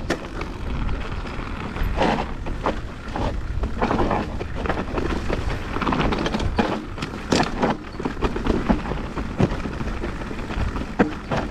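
Mountain bike riding down a rough trail: steady tyre noise on the dirt, with frequent sharp rattles and knocks from the bike as it runs over bumps.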